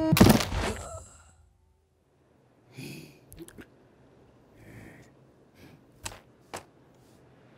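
A loud hit cuts off a held musical chord and dies away within about a second. Then, in near-quiet, a person sighs faintly twice, with a few sharp clicks, two of them about half a second apart near the end.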